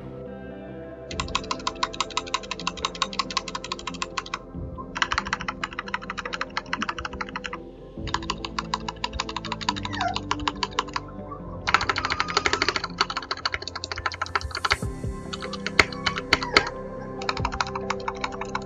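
Large stabilized keys of an RK987 mechanical keyboard with red linear switches pressed in rapid runs of clicks, six runs of a few seconds each with short pauses between, testing the stabilizers. Background music plays underneath.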